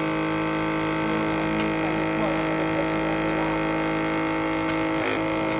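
Countertop vacuum sealer's pump running with a steady hum, drawing the air out of a plastic bag; it breaks off briefly about five seconds in.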